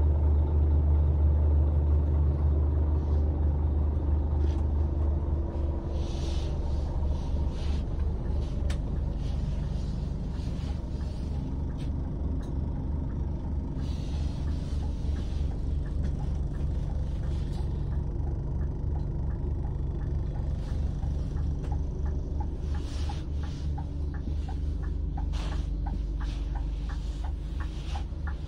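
Scania coach's engine idling, heard from inside the cabin as a steady low rumble. A regular ticking starts near the end.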